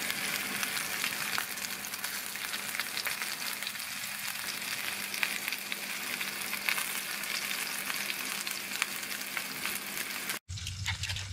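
Flour-dusted lamb shanks sizzling as they brown in a frying pan, a steady hiss with scattered small pops and crackles. The sizzle cuts off abruptly about a second before the end.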